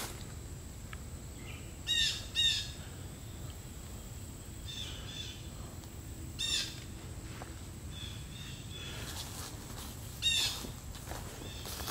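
A bird calling in short, harsh notes, each a quick downward sweep. A loud pair comes about two seconds in, then single calls about six and a half and ten seconds in, with fainter calls between. Under them is a low rumble of footsteps on a dirt trail.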